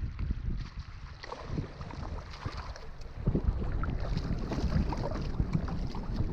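Wind buffeting the microphone in irregular low gusts, with scattered small knocks, growing stronger about three seconds in.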